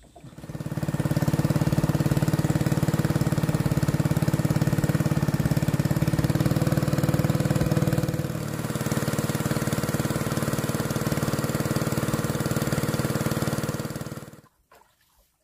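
Small boat engine running steadily. Its note eases slightly about eight seconds in, and it cuts off suddenly near the end.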